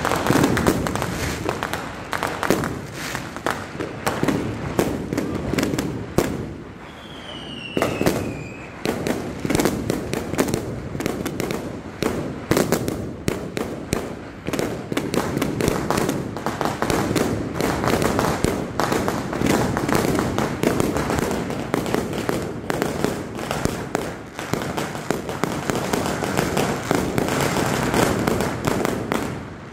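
Fireworks going off in a dense, unbroken run of overlapping bangs and crackling. About seven seconds in there is a short lull, and a whistle falling in pitch cuts through.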